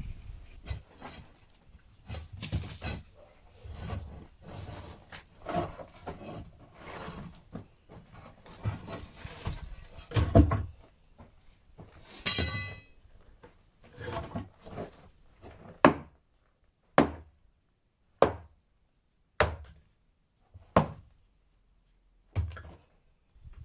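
Wooden knocks and thuds of timber being worked loose and handled. A short rattling clatter comes about halfway through, then about six sharp, evenly spaced strikes a little over a second apart.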